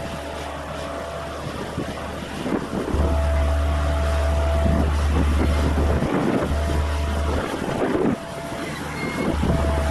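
Diesel engine of a small earthmoving machine running steadily as it works the ground, with a thin steady whine. Wind buffets the microphone with a heavy low rumble, loudest from about three seconds in.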